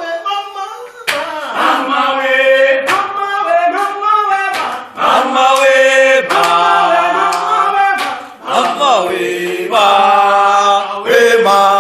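A group of comrades singing a revolutionary struggle song together, many voices holding long notes that shift pitch every second or so.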